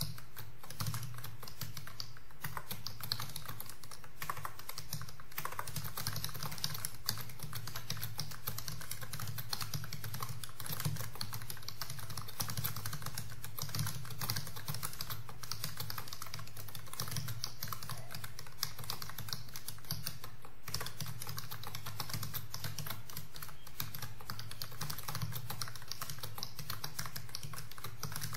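Computer keyboard being typed on fast and continuously, at about 90 words per minute: a dense, even stream of key clicks over a low steady hum.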